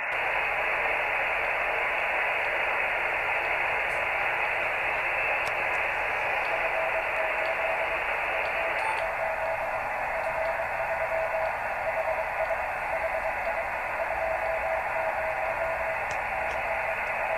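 Receiver hiss from the FO-29 amateur satellite's 435.8 MHz downlink, with the satellite's CW beacon coming through as a faint on-off Morse tone from about six seconds in.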